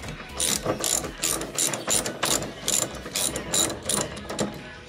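Hand ratchet socket wrench clicking in a series of short strokes as a pre-installed bolt is backed out.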